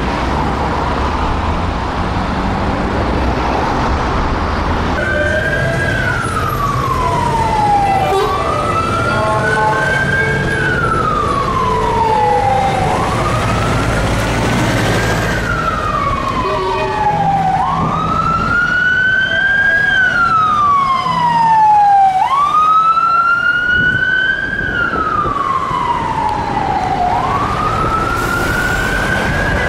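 Traffic rumble, then from about five seconds in a siren on a Metropolitan Police Mercedes-Benz Sprinter van sounding a slow wail. Each cycle rises to a peak and falls away, repeating about every five seconds.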